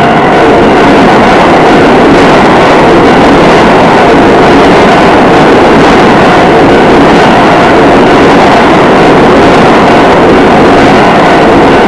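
Keio Line electric train passing close over a level crossing: a loud, steady rush of wheel and running noise, with the crossing's warning bell still ringing faintly beneath it.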